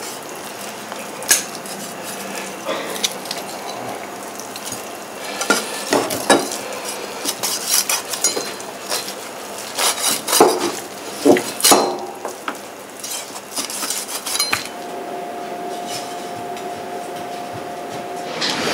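Knife cutting apart a rack of wild boar ribs on a wooden cutting board: scattered knocks and clicks of the blade against bone and board, with clinks of metal kitchenware. A steady hum comes in during the last few seconds.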